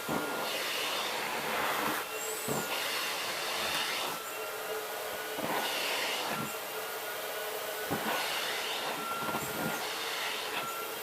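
Miele Red Star canister vacuum running steadily with a faint whine, its rushing sound swelling and easing every second or two as the nozzle is worked over fur.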